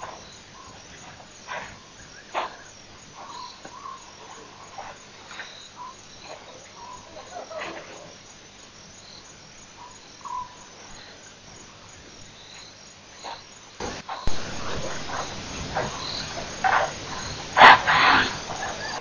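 Evening chorus of frogs and insects, with short repeated chirps and clicks. About three-quarters of the way in, louder noisy sounds close to the microphone take over, with a sharp loud burst near the end.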